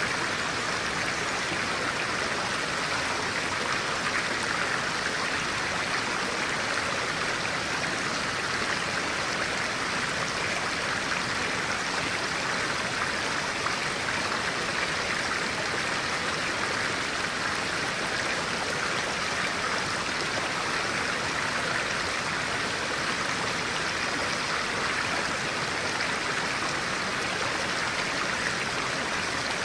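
Stream of clear water flowing steadily over stones, an even rushing and babbling.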